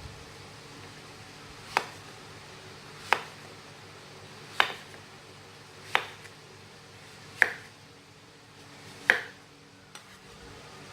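Knife slicing through breadfruit and knocking on a cutting board, one cut at a time, six sharp knocks about a second and a half apart.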